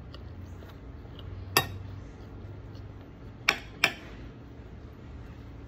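Cutlery clinking against a plate during a meal: one sharp clink about a second and a half in, then two more close together near four seconds in.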